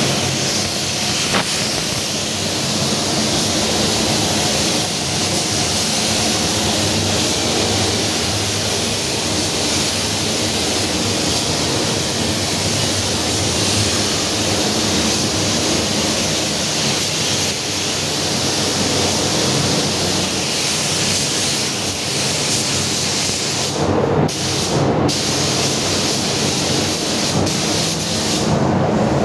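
Compressed-air paint spray gun hissing steadily while spraying a car hood, over a low hum, with the hiss cutting out briefly twice near the end when the trigger is let off.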